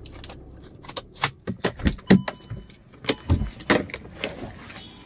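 A quick run of irregular clicks and light metallic rattles, thickest between about one and four seconds in.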